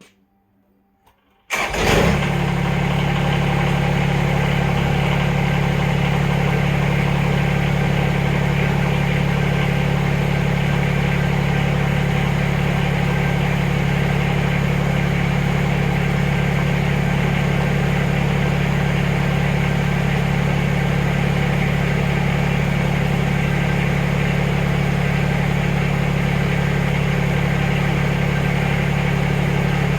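Backhoe engine running steadily, cutting in suddenly about a second and a half in after near silence.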